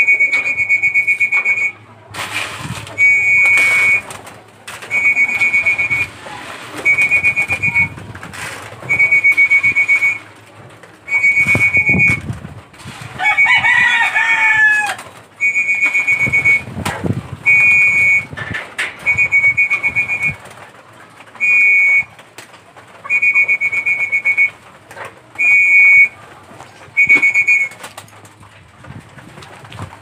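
A whistle blown in about fourteen steady, high, evenly spaced blasts of about a second each, the keeper's feeding call to his racing pigeons. A rooster crows once about halfway through.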